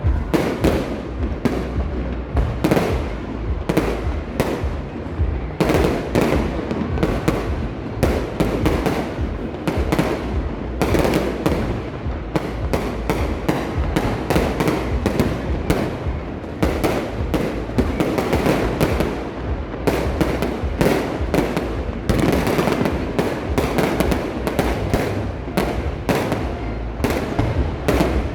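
Fireworks exploding in a rapid, unbroken barrage: several sharp bangs a second, with crackling between them.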